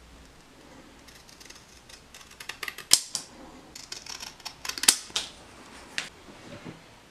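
Scissors cutting through a sticker: a run of crisp snips, the loudest about three, five and six seconds in.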